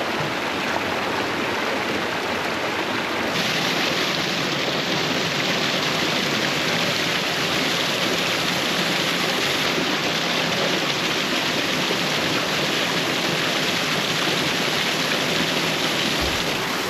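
Small mountain stream rushing and splashing close by, a steady loud wash of water that grows a little louder about three seconds in.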